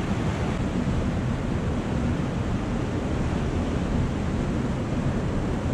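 Whitewater rushing steadily through a concrete fish ladder and over the rapids below a river dam: a loud, even rush of water.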